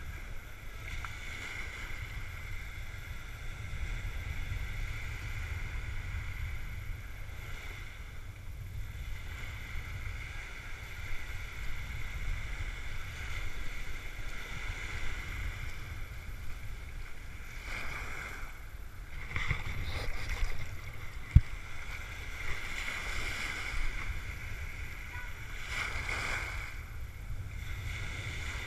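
Small waves washing up the beach at the waterline, with wind rumbling steadily on the microphone; the wash swells several times in the second half. A single sharp click about three-quarters of the way through is the loudest sound.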